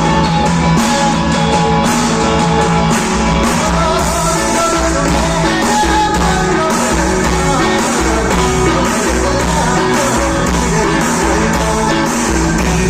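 Live rock band playing: electric guitar, bass and drums with a regular cymbal beat, and a voice singing over them.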